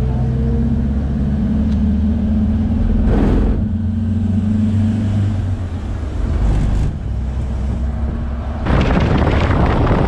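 Pickup-truck taxi running steadily along the road, heard from its open rear passenger bed: a steady low engine drone with road noise. A short rush of noise comes about three seconds in and a louder one near the end.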